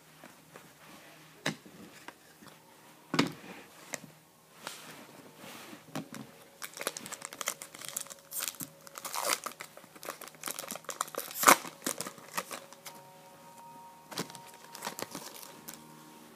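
Wrapper of a 2013-14 SP Authentic hockey card pack being torn open and crinkled, with cards being handled: irregular crackling and sharp snaps, the loudest about eleven and a half seconds in.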